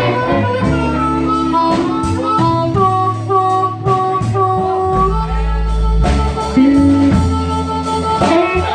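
Live blues band: an amplified harmonica plays long held notes over upright bass, drums and electric guitar.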